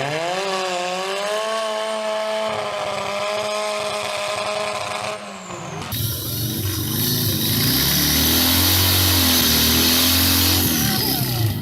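Large chainsaw engine revving up and then holding a high, steady note at full throttle. About six seconds in, the sound cuts to a second, lower and heavier engine running under a loud hiss. The hiss drops away near the end.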